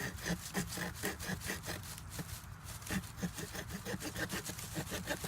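Victorinox Swiss Army knife sawing into the stem of a green sapling, quick back-and-forth strokes about four a second; the green wood is hard going.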